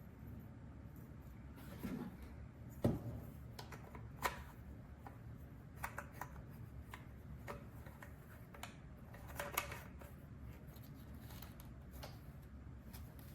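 Scattered light clicks, taps and rustling of something being handled, over a faint steady low hum.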